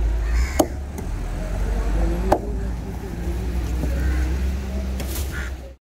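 Large knife chopping through chunks of yellowfin tuna onto a wooden chopping block: three sharp chops, roughly two seconds apart, over a steady low rumble. The sound cuts off abruptly near the end.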